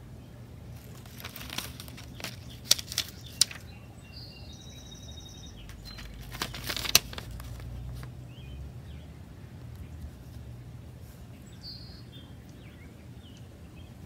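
Plastic plant label being handled: crinkling and rustling with a few sharp clicks, in two spells in the first half. A bird gives short high chirps twice, over a steady low outdoor rumble.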